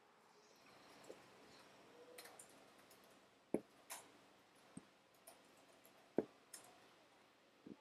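Tambour hook piercing and pulling back through fabric stretched taut on an embroidery frame: irregular faint clicks and ticks, two of them sharper, over near-silent room tone.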